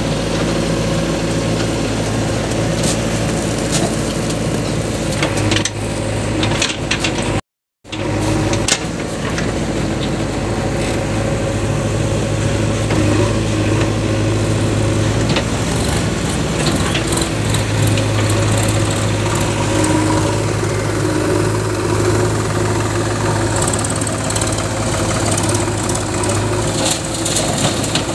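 Diesel tractor engines running at a steady idle, with a low, even hum. The sound drops out for a moment about seven seconds in.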